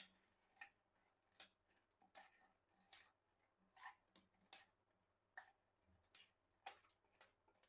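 Near silence, broken by a few faint, irregular clicks as fingers mixing boondi into curd tap against a steel bowl.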